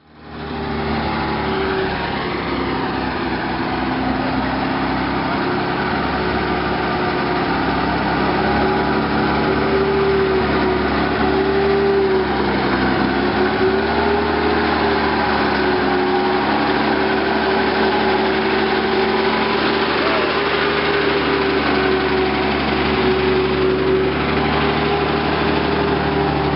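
Cletrac M2 High Speed Tractor's six-cylinder Waukesha petrol engine running steadily as the tracked tractor drives over loose dirt, its pitch dipping briefly and recovering about halfway through.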